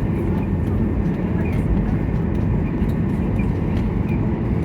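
Steady rumble of a Boeing 737-800 airliner heard inside the passenger cabin, with faint rattles and clicks over it.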